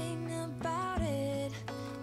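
Soft background music: a gliding, wavering melody over steady low notes, with a few light taps.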